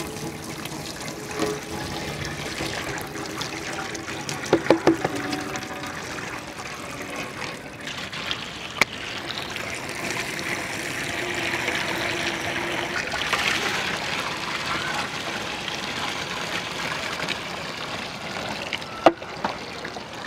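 Milk pouring in several streams from cartons into a large aluminium pot, a steady trickling and splashing of liquid into liquid. A few sharp knocks come about four to five seconds in.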